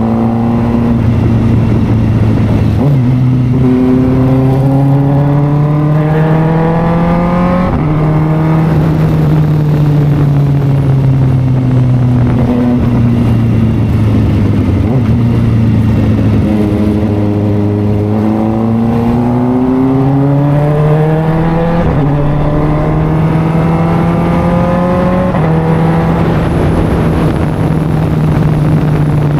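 Inline-four engine of a 2023 Kawasaki Ninja ZX-4RR, fitted with an SC Project exhaust, under way on the road. The revs climb and drop sharply at gear changes, with a long slow fall in the middle as the bike slows before it pulls away again.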